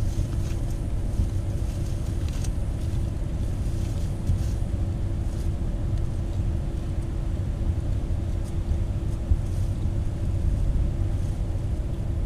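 Steady low rumble of a vehicle under way, with a faint steady hum over it.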